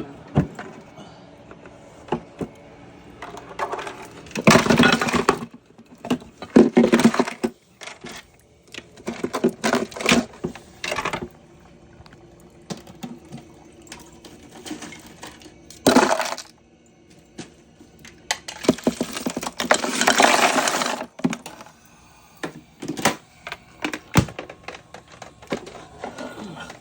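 Hard objects being handled and packed: scattered clinks and clatters with rustling, and several louder noisy rushes of about a second each, the longest about two-thirds of the way through.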